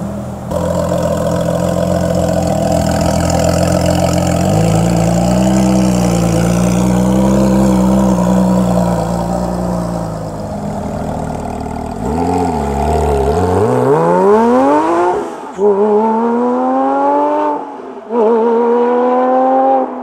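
Porsche 997.2 GT3 RS's 3.8-litre flat-six on a straight-piped custom exhaust. It idles steadily, and its note lifts a little about four seconds in. From about twelve seconds it accelerates through the gears: three rising climbs, each cut short by a brief drop at a gear change.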